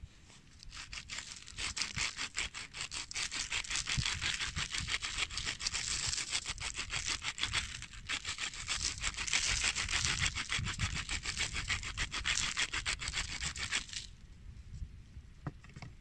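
Wooden salt mill being twisted by hand, grinding salt in a fast, gritty run of fine clicks that swells twice and stops abruptly near the end.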